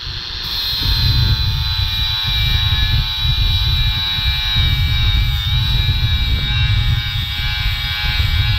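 Earthquake XT brushless 4½-inch angle grinder running at full speed with a steady high whine, its 30-grit flap disc grinding rust off an old brake rotor. Wind rumbles on the microphone underneath.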